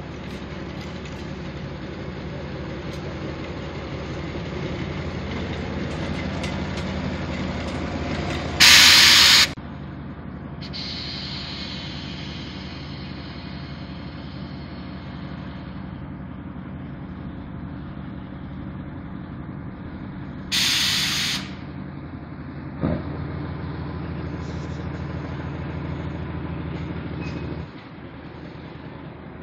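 Lxd2 narrow-gauge diesel locomotive running and pulling away along the track, its engine note steady. It gives two short, loud blasts about twelve seconds apart, and the engine drops off sharply near the end.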